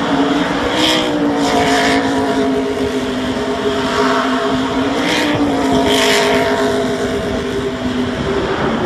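NASCAR Cup car's V8 held at high revs through a victory burnout, with a near-steady engine note that sags briefly midway. Rear tyres spinning and smoking on the track, with several short hissing bursts of tyre noise.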